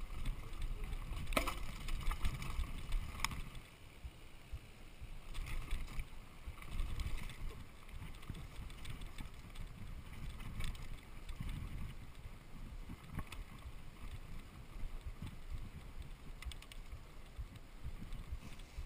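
Mountain bike rolling fast over a wet dirt trail with roots and rocks: a steady low rumble of the ride, with sharp rattles and clacks from the bike jolting over roots, most in the first few seconds.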